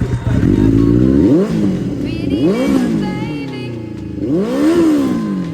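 Benelli 600i's inline-four engine being revved, three blips of the throttle, each rising and falling in pitch.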